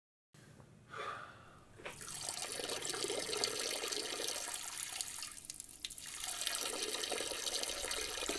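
A steady stream of urine splashing into a wall urinal. It starts about two seconds in and weakens briefly just past the middle.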